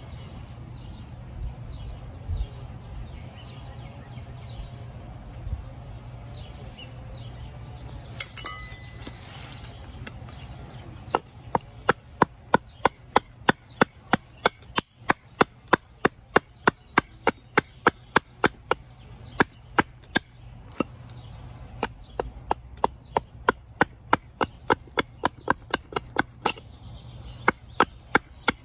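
Hatchet chopping a green cherry wood spoon blank: a quieter start, then, about a third of the way in, a long run of quick, sharp blows about two to three a second, with a short break near the end.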